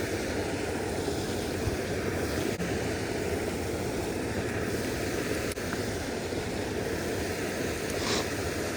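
Creek water rushing steadily, with a brief higher hiss near the end.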